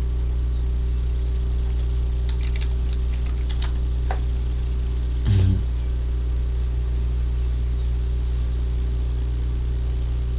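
Steady electrical mains hum with a thin high-pitched whine over it, picked up by the recording microphone. A few faint clicks come in the middle, and a short low sound a little after five seconds in.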